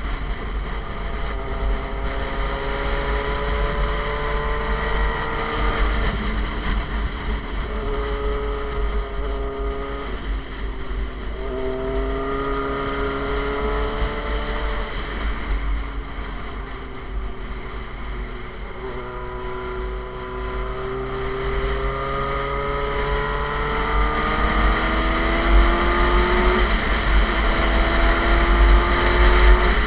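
Suzuki GSX-R's inline-four engine through an SC Project aftermarket exhaust, accelerating through the gears: its pitch climbs, drops at each upshift, then climbs again, with a long pull in the second half. Wind buffets the microphone underneath.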